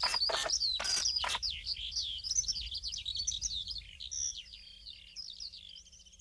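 Birds chirping in quick, overlapping high twitters that thin out and fade over the last couple of seconds, with a few sharp clicks in the first second and a half.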